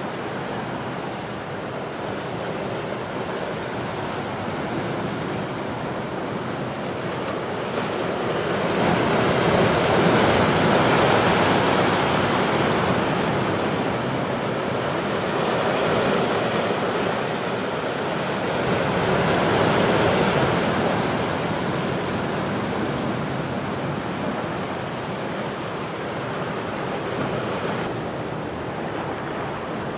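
Pacific surf breaking over coastal rocks: a continuous wash of water that swells louder three times, with the biggest surge about a third of the way in, then eases off.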